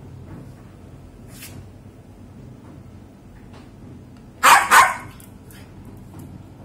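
Poodle barking twice in quick succession, two short, loud barks about four and a half seconds in.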